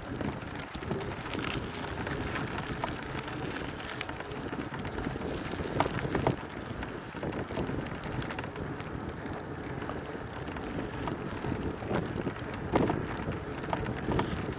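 Electric trail bike ridden over a rough mountain trail: wind rushing over the microphone and tyre noise, with scattered knocks and rattles from the bike over the ground.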